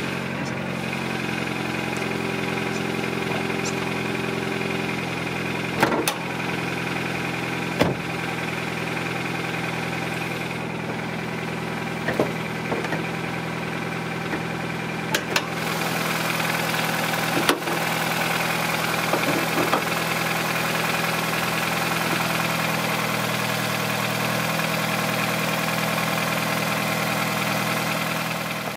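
2009 Nissan Versa's four-cylinder engine idling steadily, with a few sharp clicks and knocks as the hood is unlatched and raised. The idle gets a little louder about two thirds of the way through, once the hood is up.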